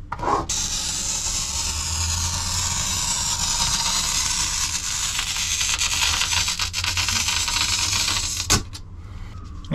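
Oil-fed glass cutter's hardened wheel scoring a sheet of glass along a steel rule: one long, steady hissing scratch lasting about eight seconds, ending in a sharp click as the wheel runs off the edge. The maker thinks the score was too light, because he held back pressure on a slippery, non-cork-backed rule.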